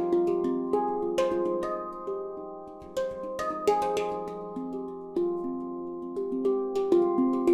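F Pygmy handpan of ember steel played by hand: a flowing run of struck notes that ring on and overlap, each dying away slowly, with several notes hit with a sharper tap.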